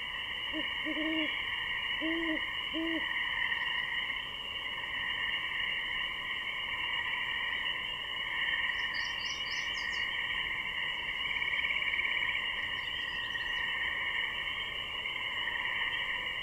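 Great horned owl hooting three low notes in the first three seconds: one longer note, then two short ones. Under the hoots and throughout, a steady high chorus of calling frogs.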